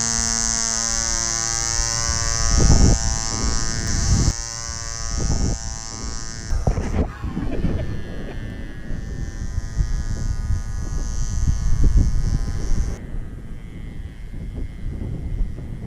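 Bantam 19 spark-ignition model aero engine running at full throttle with a steady high-pitched buzz, growing fainter from about halfway as the hand-launched model climbs away, and fainter still near the end. Several low rumbles of wind buffet the microphone.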